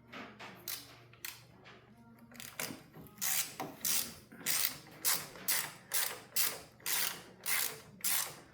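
Hand ratchet wrench tightening a bolt: a few loose clicks, then from about two seconds in steady back-and-forth ratcheting strokes, a little over two a second.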